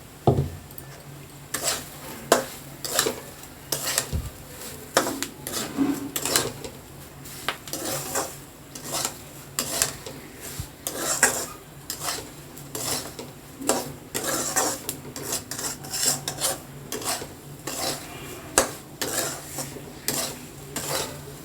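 Metal spatula scraping and stirring semolina in a kadai, in a quick, uneven run of short strokes.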